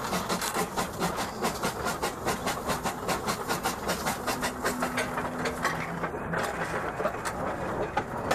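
1899 Porter 0-4-0 steam locomotive running, heard from its cab: a fast, even chuffing beat of about four to five pulses a second over steady steam hiss. The beat eases after about five seconds in.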